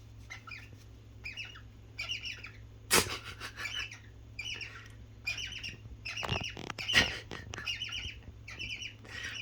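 Cockatiels mating: a run of short, high, squeaky chirps, about two a second, with a couple of sharp clicks among them.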